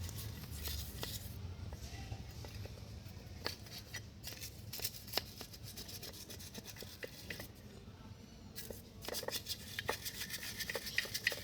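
Brush scrubbing a petrol-soaked motorcycle drive chain and sprocket, a run of short scratchy strokes that gets busier near the end, loosening caked mud and grime.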